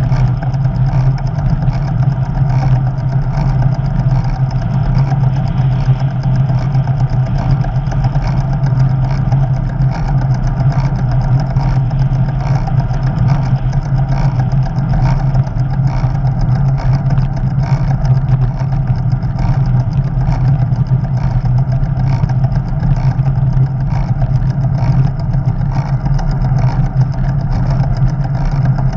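Steady wind rush and tyre rumble picked up by a camera riding on a bicycle rolling along a paved road, a constant low rumble with no let-up.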